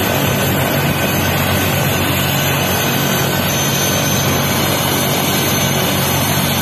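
Rescue helicopter's turbine engine and rotor running steadily on the ground: a constant rush with a steady high whine over it.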